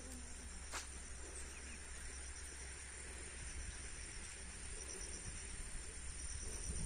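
Insects chirring steadily in a high, slightly pulsing drone, over a low steady rumble, with a single sharp click a little under a second in.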